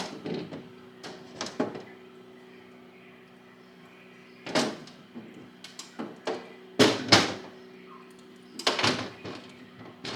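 Irregular knocks and clunks, about six of them and loudest near the middle, as plant pots and shelves are moved around in a glass-door IKEA Milsbo cabinet, over a steady low hum.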